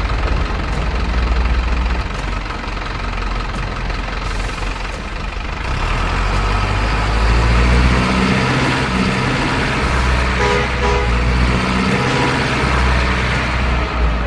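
Truck engine sound running with a steady low drone, with a few short horn toots about ten seconds in.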